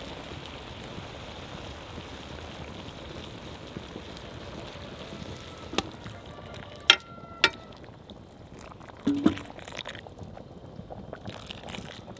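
Boiling water poured from a kettle onto rice in a kazan, a steady splashing pour. Partway through come three sharp metal clinks, two ringing briefly, then a single knock a few seconds later.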